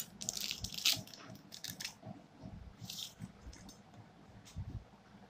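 Crinkling and rustling of plastic and foil food packaging being handled on a table, with a few light clicks and taps. The sounds are busiest in the first two seconds, with one more rustle about three seconds in.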